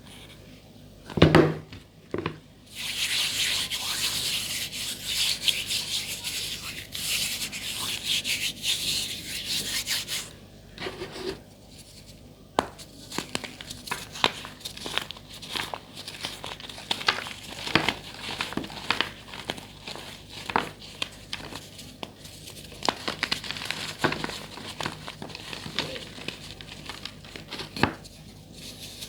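Gym chalk being crushed and crumbled by hand. A couple of knocks come about a second in, then several seconds of dense crunching and crackling, then scattered sharp crunches.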